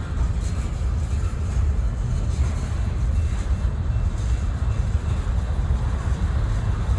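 Freight cars of a mixed freight train rolling past: a steady, loud rumble of steel wheels on rail.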